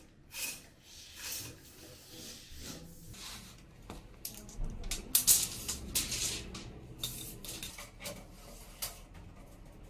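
Irregular scuffs, rustles and clicks of someone moving about and handling a tape measure on a hard stone-chip floor, with the sharpest clicks about halfway through.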